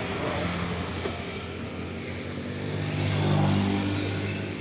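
A motor vehicle's engine passing on the street, its hum growing louder about three seconds in and then fading, over steady traffic noise.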